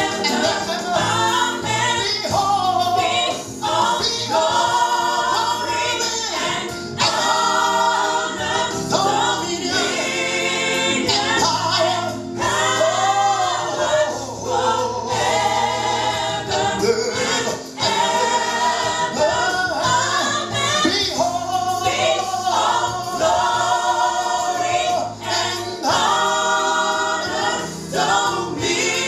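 Gospel choir and congregation singing a slow worship song with instrumental accompaniment.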